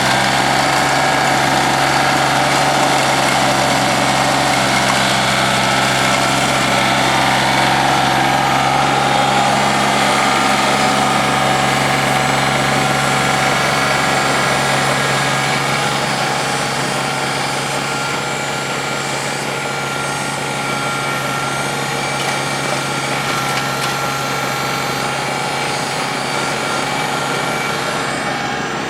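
1986 John Deere 856 tractor's diesel engine running steadily, driving a PTO two-stage snowblower at work. It eases off slightly about halfway through.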